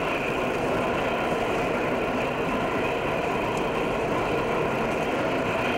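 Subway train running: a steady, even rumble and rattle with no let-up.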